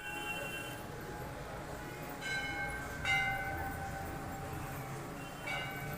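Temple bell struck three times, about two seconds in, about three seconds in and near the end, each stroke ringing on and fading.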